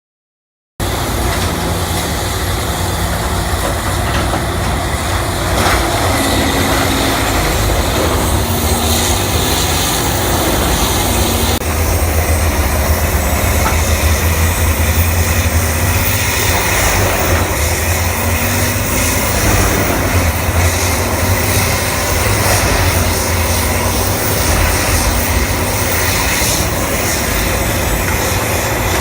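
Case CX250D hydraulic excavator running under working load, a steady engine drone with faint low tones that waver up and down as the demolition grapple is worked. It starts abruptly just under a second in.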